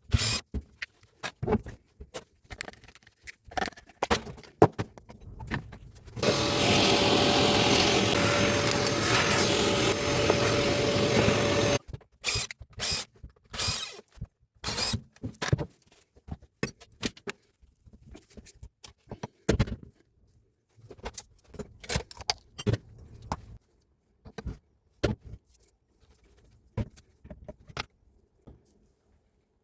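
Metal parts and tools clicking and knocking in irregular handling sounds during the repair of a Hilti TE905 breaker, with a motor running steadily for about six seconds, starting about six seconds in, before cutting off.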